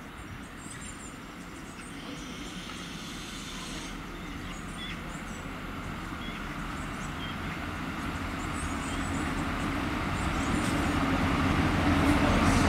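Irish Rail Class 29000 diesel multiple unit approaching, its diesel engines running and its wheels on the rails growing steadily louder as it draws nearer.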